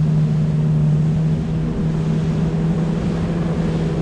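Yamaha FX Cruiser SVHO jet ski running at a steady cruising speed: a constant, even engine drone over the rush of wind and water spray.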